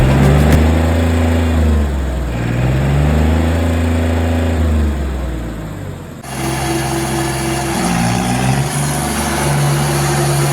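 Tractor diesel engine running, its speed rising and falling a few times. The sound changes abruptly about six seconds in, as at a cut between shots.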